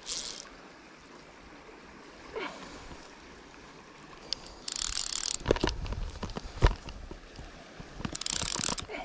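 Fly reel's click-and-pawl ratchet buzzing in three short runs as line is pulled off it while a hooked salmon is played, with a few loud knocks from handling the rod and reel in the middle, the loudest at about two-thirds of the way through.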